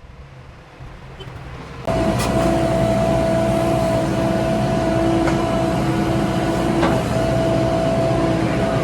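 Diesel engine of heavy earthmoving machinery, a faint low rumble at first, then suddenly loud about two seconds in and running steadily with a held whine over it.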